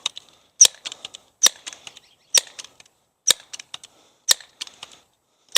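Pellet pistol firing: a string of sharp cracks about one a second, each followed by fainter clicks.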